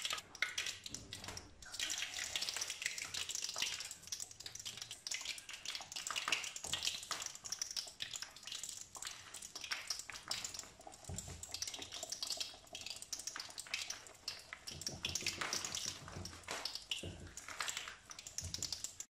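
Gram-flour-battered potato slices deep-frying in hot oil in a karahi: steady sizzling with dense, irregular crackling and popping.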